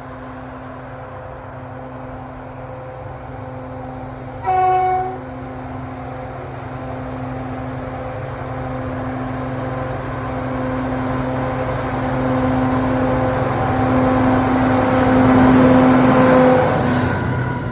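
Diesel locomotive working uphill, its engine drone growing steadily louder as it approaches, with one short horn blast about four and a half seconds in. The engine is loudest near the end, then drops away as it passes.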